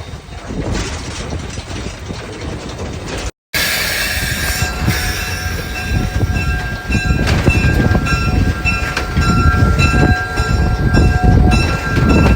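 Steam locomotive running with a heavy rumble. After a short gap in the sound a few seconds in, its whistle blows one long chord of several pitches at once, lasting about eight seconds, while the running sound grows louder.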